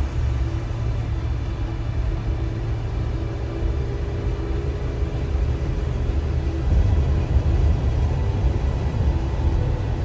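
Steady road noise of a car driving: a deep low rumble of tyres and engine with a faint, even hum.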